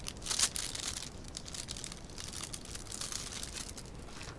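Clear plastic packaging bags crinkling as they are handled, loudest about half a second in, then lighter rustling.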